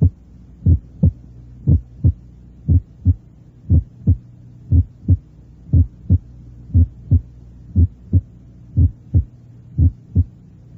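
Recorded heart sounds at the lower left sternal border, about one beat a second. The first heart sound is split into a softer first component followed by a slightly higher-pitched, louder second one. This is a normal split of the first sound, mitral closure then tricuspid closure. A steady low hum from the recording runs underneath.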